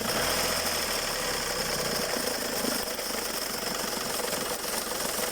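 Skoda Fabia 1.4 TDI diesel running with a loud, rapid, steady knocking rattle from the accessory belt drive. The mechanic blames a worn belt tensioner and a failing alternator pulley and alternator.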